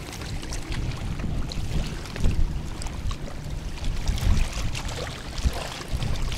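Strong gusty wind buffeting the microphone, a low rumble that swells and drops, with small waves lapping on the stony shore beneath it.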